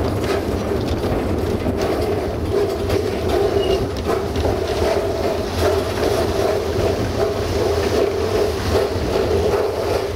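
Narrow-gauge steam train running: a steady rumble with irregular clicks and knocks of the wheels and wagons on the track.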